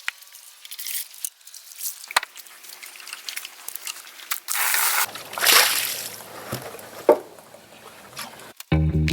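Water sloshing and trickling in a muddy pig water trough, with a few sharp knocks and a louder splashing rush midway. Music comes in right at the end.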